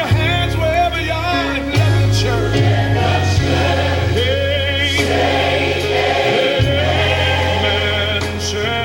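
A gospel choir singing with vibrato over instrumental backing with a steady bass line.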